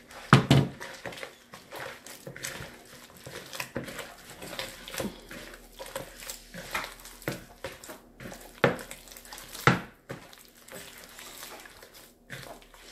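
Hands kneading soft yeast dough in a plastic bowl: irregular squelching and slapping, with a few louder slaps near the start and twice later on. The dough is on the wet, sticky side after extra water was worked in.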